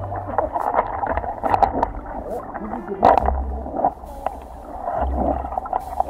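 Muffled stream water heard underwater through a submerged camera: a steady gurgling rush with scattered clicks and knocks, likely from pebbles and bubbles, and an on-and-off low rumble.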